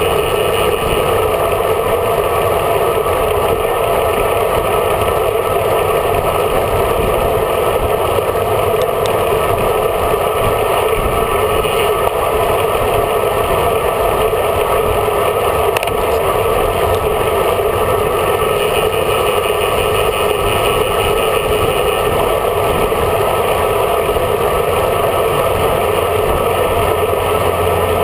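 Steady wind and road rush picked up by a bike-mounted camera on a road bicycle at riding speed: an even, unchanging noise.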